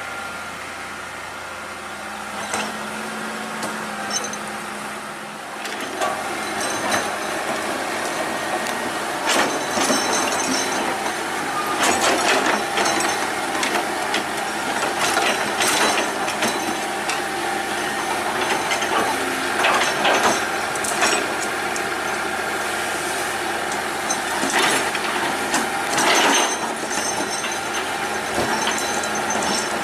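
Excavator loading on a hillside: the machine runs under load while the bucket digs and dumps, with many clanks, knocks and cracks of rock and soil. The knocking gets busier and louder about six seconds in.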